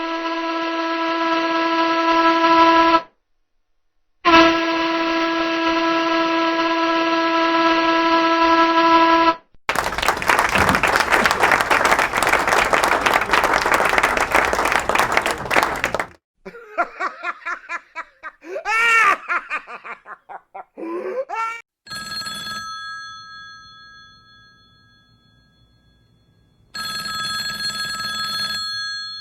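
A run of separate sound effects. First come two long horn blasts, about three and five seconds long, with a short gap between them. Then about six seconds of dense, rough noise, a run of short rising-and-falling chirps, and near the end a telephone bell ringing in two bouts.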